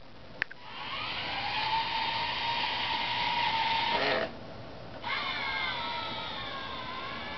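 The four small electric drive motors of a wheeled robot whining as it drives slowly over carpet. The whine rises in pitch as they spin up about half a second in, cuts off about four seconds in and starts again a second later. A single click comes just before the motors first start.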